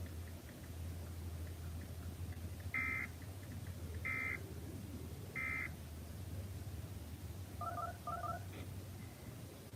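Emergency Alert System end-of-message signal: three short, equal bursts of SAME digital data tones about a second and a quarter apart, which mark the close of the alert. Two brief double beeps follow near the end, over a steady low hum.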